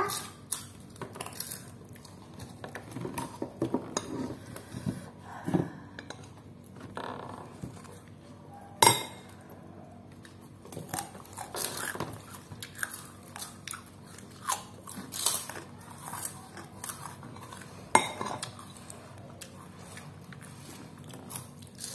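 A metal spoon clinking and scraping on a ceramic plate, mixed with chewing and the crunch of a fried cracker being broken up and eaten. Two sharp clinks stand out, about nine and eighteen seconds in.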